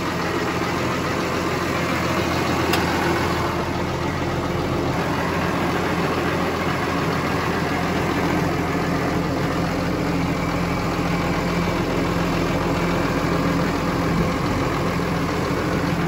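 Large farm tractor's diesel engine idling with a steady, unchanging drone.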